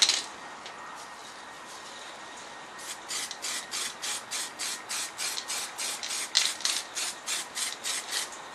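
A short burst of noise right at the start, then from about three seconds in quick, even rubbing strokes, about four a second, by hand on a bare steel panel; they stop shortly before the end.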